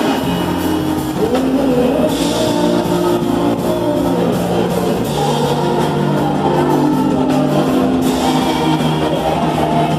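Live band playing a song through stage speakers, with electric guitar, drum kit and a singer.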